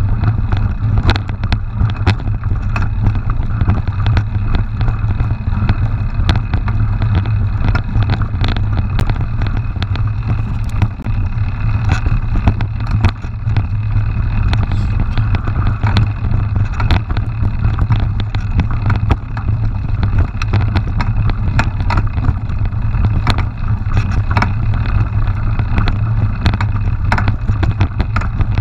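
A mountain bike ridden fast down a rough dirt trail: a steady low rumble of wind and vibration on the camera's microphone, with frequent sharp clicks and knocks as the bike rattles over bumps.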